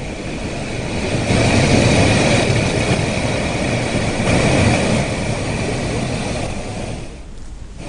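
Muddy floodwater rushing and pouring over a broken causeway: a loud, steady noise that eases a little near the end.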